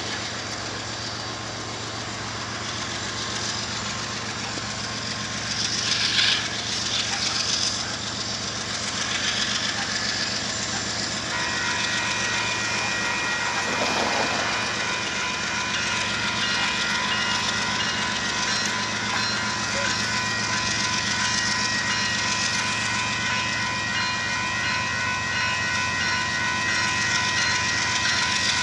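Diesel locomotives of an approaching Union Pacific freight train rumbling steadily. A little over a third of the way in, the grade-crossing warning bell starts ringing and keeps on, as the crossing activates for the train.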